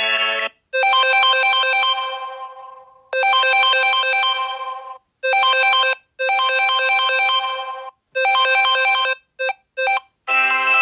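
Samsung Galaxy A20e ringtones playing: a bright, chiming melody that keeps being cut off and restarted, several times in a row with short silences between, then two very brief starts near the end, and a different tone beginning just before the end.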